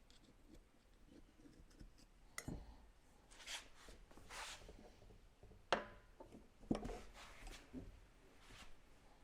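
Quiet hand-work on small pressure washer pump parts while a seal is fitted: scattered light clicks, brief rustles, and two sharp taps about six and seven seconds in.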